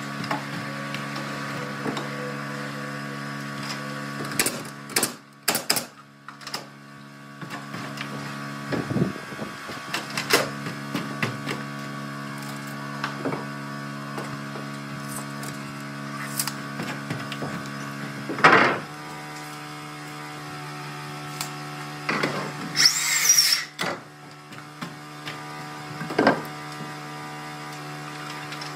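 Wood-framing work: a steady mechanical hum with several held tones runs under scattered sharp knocks and clacks on lumber. The loudest knock comes about eighteen seconds in, and a short hissing burst follows a few seconds later.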